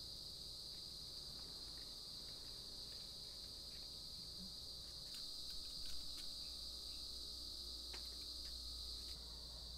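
Steady high-pitched chorus of insects, like crickets, trilling without a break, with a few faint clicks about halfway through.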